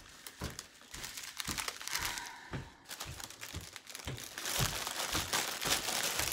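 Clear plastic bag crinkling and rustling as foil packets of diamond-painting drills are handled and pushed into it, denser and louder in the last second and a half, with scattered soft thumps.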